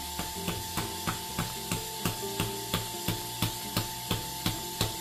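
Starseeker Edge coffee grinder with titanium-coated burrs being turned by hand at a very fine setting, a sharp click on each turn about three times a second, growing louder as it goes.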